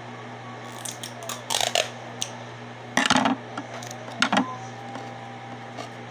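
Small hard objects clattering and knocking on a tabletop as craft supplies are handled: a few light clicks in the first two seconds, then two louder knocks about three and four seconds in. A steady low hum runs underneath.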